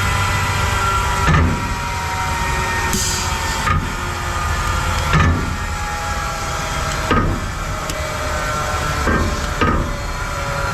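Two-head 36-inch wide belt sander running steadily with a hum and several steady tones, broken by six sharp knocks at uneven intervals of one to two seconds.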